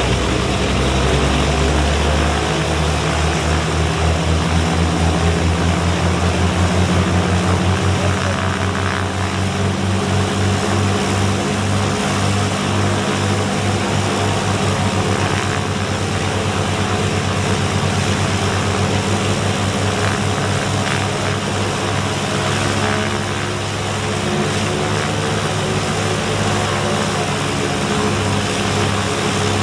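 Twin-engined de Havilland Devon's two Gipsy Queen six-cylinder piston engines running steadily on the ground, propellers turning, with a regular throbbing pulse through much of it.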